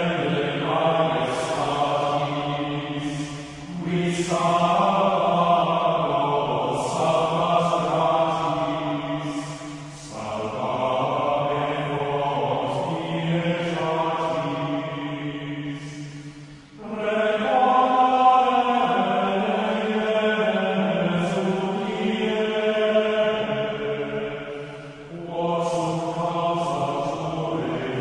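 Background music of slow, chant-like voices singing long held phrases of several seconds each, with short breaks between them.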